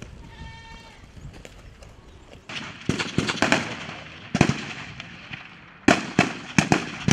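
A string of sharp gunshots, single rifle shots fired irregularly about a second or less apart, starting a couple of seconds in, during a field-tactics demonstration by soldiers advancing with rifles.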